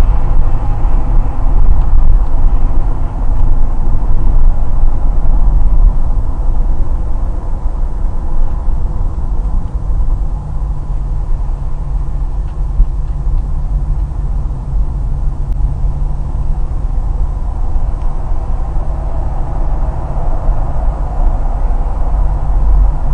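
Steady road and engine noise of a car driving on a highway, heard inside the cabin, strongest at the low end. It drops a step in loudness after about six seconds as the car slows from about 97 to 55 km/h.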